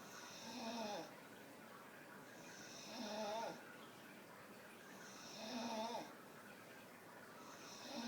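Staffordshire bull terrier snoring in a steady rhythm: four snores about two and a half seconds apart, the last starting near the end. Each is a short, hissy snore with a wavering tone.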